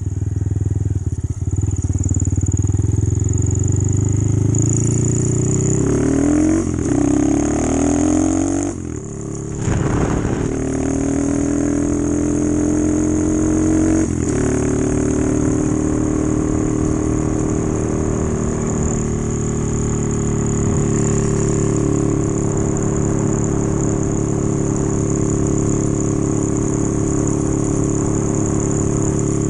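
Honda Monkey's small single-cylinder four-stroke engine under way. It picks up revs, drops briefly about nine seconds in, climbs again until a second drop around fourteen seconds, then runs at a steady cruise. This is the pattern of accelerating up through the gears.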